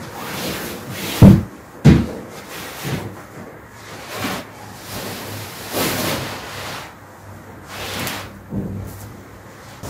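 A cotton bedsheet rustling and swishing as it is shaken out and spread over a mattress. Two sharp thumps just over a second in and again about half a second later are the loudest sounds.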